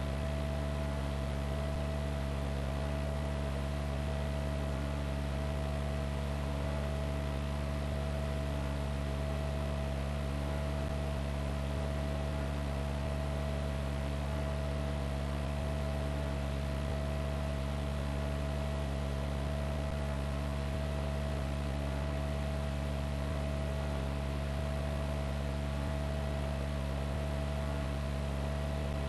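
Steady hum and hiss with a constant mid-pitched tone, unchanging throughout, with no distinct events.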